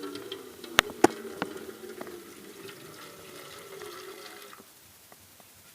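Bitterleaf juice being poured into the heating chamber of a homemade machine, a steady pouring of liquid that stops about four and a half seconds in. Two sharp knocks about a second in.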